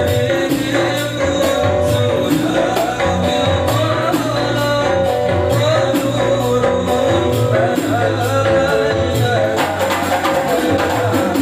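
Hadrah ensemble playing through microphones: rebana frame drums and a hand drum beating a steady rhythm under an electronic keyboard, with a man singing the melody. The drumming grows busier near the end.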